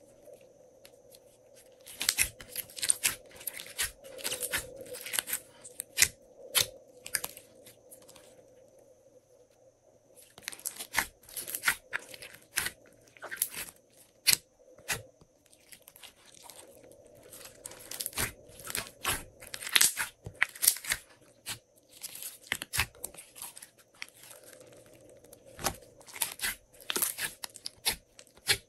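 Glossy slime being squished and stretched by hand, giving irregular runs of sticky clicks and crackling pops, with a lull of a few seconds about eight seconds in.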